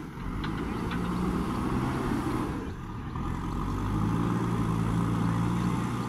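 JCB 3DX backhoe loader's diesel engine running under load as the machine drives up a dirt slope, with a few short knocks about half a second in. The engine gets a little louder and steadier from about the middle on.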